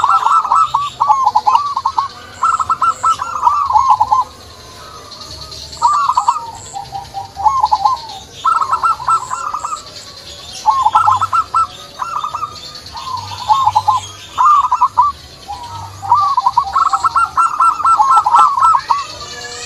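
Zebra dove (perkutut) singing: repeated phrases of quick, rippling coo notes, each phrase lasting a second or so and coming back again and again with short pauses between.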